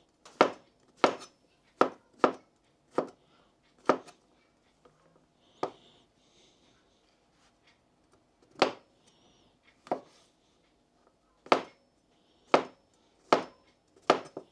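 Kitchen knife cutting mushrooms on a cutting board: about a dozen sharp, separate knocks of the blade hitting the board, unevenly spaced, with a pause of a few seconds in the middle.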